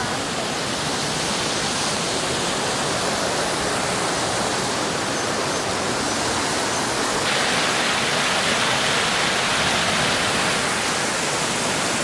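Steady rushing of the Endert, a fast forest stream tumbling over rocks below a footbridge near its waterfall. The rush gets a little louder and hissier about seven seconds in.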